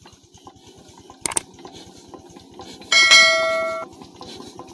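Single-cylinder Peter-type diesel engine running with a rapid, even knocking beat. About three seconds in, a piece of metal is struck and rings out like a bell for about a second, the loudest sound here.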